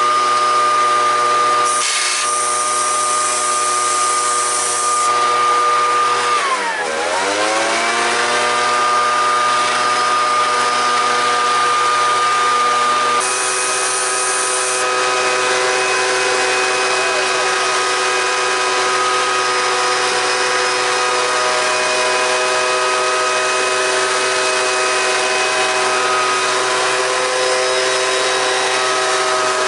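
Turbocharger on a home-built wood-fired turbo stove spinning at speed: a steady high whine of several tones. About six seconds in the pitch dips sharply and spools back up to its steady note.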